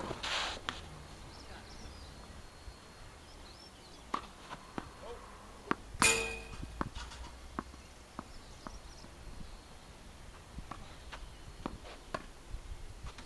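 Tennis ball struck by rackets and bouncing on the court, with scattered footsteps and scuffs. About six seconds in comes one sharp, louder strike with a brief ring.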